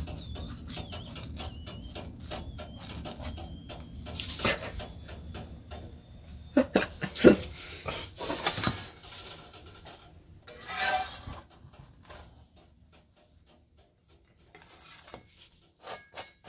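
Kitchen handling sounds: a metal spatula scraping and clinking against a pan and plates as a cooked flatbread is moved, with a cluster of sharp knocks about seven seconds in and a scrape near eleven seconds. A low hum runs under the first ten seconds.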